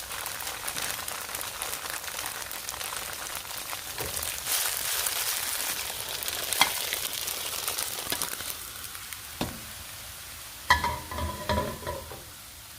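Firm tofu slices sizzling and spitting in hot oil in a wok, with scattered pops. The sizzle eases off later on, and a brief clatter with a ringing tone comes near the end.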